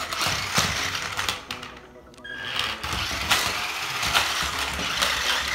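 Small electric motors of a battery-powered remote-control stunt toy car whirring as it is driven, with clicks and knocks from its plastic body on a hard tile floor; the motor sound drops away briefly about two seconds in, then starts again.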